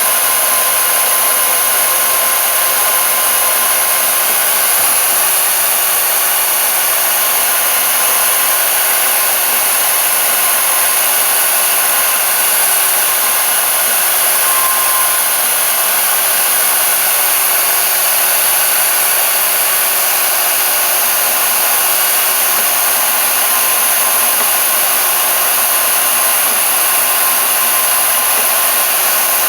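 Table-mounted portable band saw running steadily while cutting through metal stock, an even motor and blade noise with a strong high hiss.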